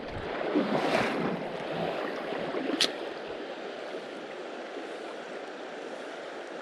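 Fast river current rushing, a steady watery hiss that swells over the first second or so and then settles, with one sharp click a little under three seconds in.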